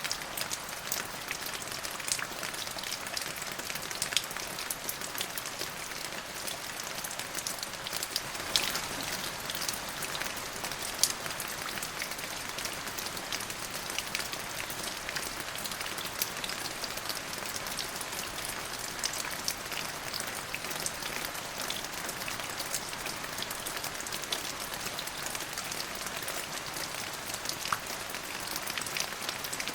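Steady rain falling on a hard surface, a dense hiss of drops with scattered sharper, louder drop hits.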